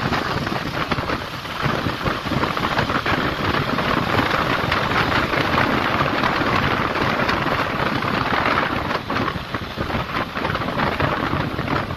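Steady rushing noise on a moving motorcycle, with wind and rain beating on the microphone and no clear engine note.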